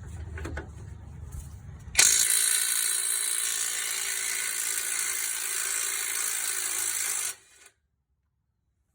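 Cordless 1/2-inch impact wrench hammering the nut off a strut pinch bolt: it starts suddenly about two seconds in, runs steadily for about five seconds and stops abruptly.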